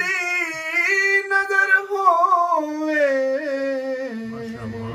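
A man singing a Punjabi Sufi devotional verse unaccompanied, drawing out one long, ornamented phrase that steps down in pitch toward the end.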